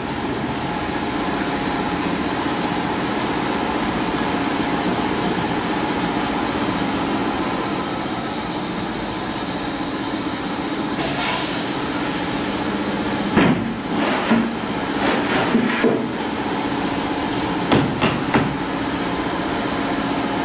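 A steady droning hum, with a few clusters of sharp wooden knocks in the second half, like wooden battens knocking together as they are handled.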